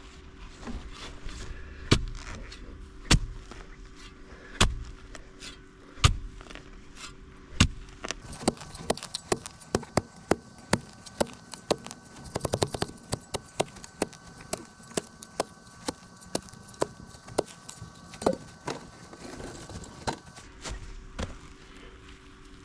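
A series of sharp knocks, about one every second and a half at first, then quicker clicks and knocks two or three a second from about eight seconds in, over a faint steady hum.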